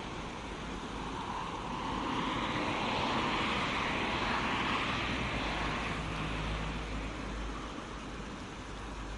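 Road traffic noise: a vehicle passing on the highway, swelling over the first few seconds and fading after about six seconds.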